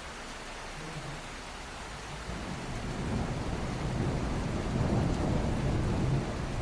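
Heavy rain pouring steadily, with a low rumble of thunder that builds from about two seconds in and eases off near the end.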